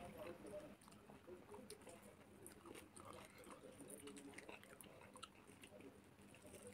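Faint, close-up soft wet squishing and scattered light clicks as a lime is squeezed by hand over a plate of food.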